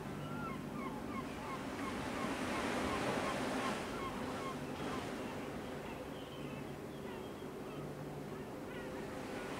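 Mediterranean Sea waves washing steadily on the shore, swelling a couple of seconds in, with a bird calling in quick short chirps, about three a second, mostly through the first half. A low steady hum runs beneath.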